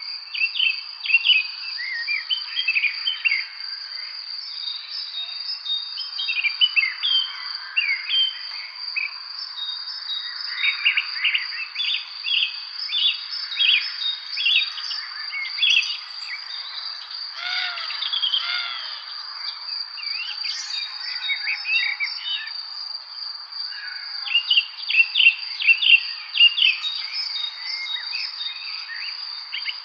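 Evening spring birdsong: several birds chirping and singing in short, overlapping phrases, over a continuous steady high-pitched insect trill.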